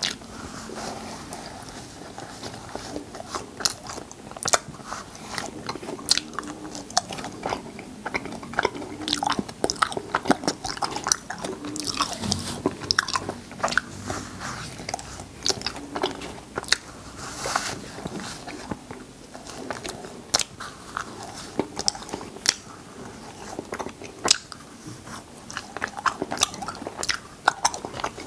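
Close-miked sounds of a man eating cotton candy: chewing and mouth noises, a continual run of sharp clicks with a couple of short rustling bursts in between.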